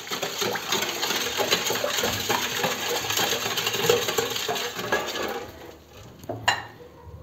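Wire whisk beating sugar water with mint leaves in a stainless steel bowl: a fast, steady metallic rattling and clinking of the wires against the bowl with light splashing, stopping about five and a half seconds in. A single knock follows about a second later.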